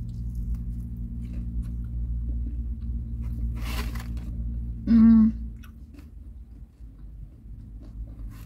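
Biting into and chewing a fried chicken wing close to the microphone, with small crunchy clicks and a brief noisy crunch partway through. A short hummed voice sound comes about five seconds in. A steady low hum runs underneath and drops away soon after.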